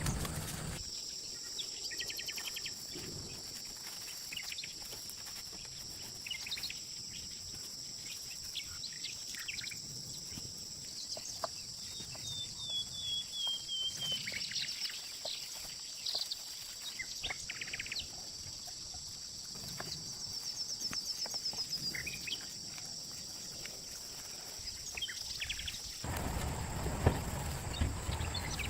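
Outdoor ambience: a steady high-pitched whine with scattered bird chirps, one a short falling trill. Near the end it gives way to louder noise with a few sharp knocks.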